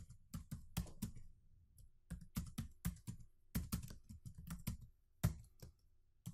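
Typing sound effect: keyboard keys clicking irregularly in short runs with brief pauses, played with a typewriter-style text animation as the letters appear.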